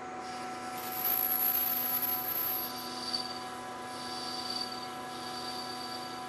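Metal lathe running with a steady whine while an internal tool cuts a thread-relief groove in a stainless steel bore. About a second in the cut gives a loud high-pitched squeal for about two seconds, then a fainter high ring comes and goes.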